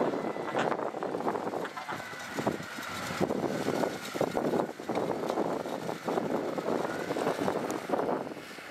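Diesel engine of working heavy earthmoving equipment, its loudness rising and falling, with a faint whine that dips and rises in pitch.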